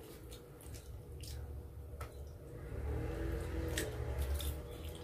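Fingers tearing skin and meat off a whole roasted chicken: soft wet squishing with scattered small crackles and clicks.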